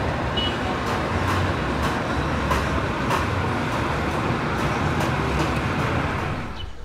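Steady distant vehicle rumble with a few faint clicks, fading away near the end.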